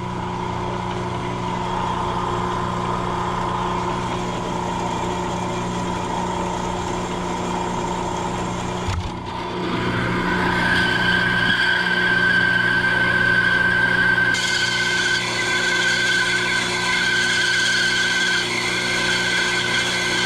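Steel being cut along a chalk line: a machine hums steadily throughout, and about halfway through a cutting tool starts with a click and a high, steady whine that holds, dipping briefly a few times near the end.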